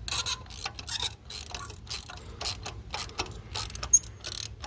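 Socket ratchet wrench clicking in quick, irregular runs of ticks as it is worked back and forth to unscrew a spark plug.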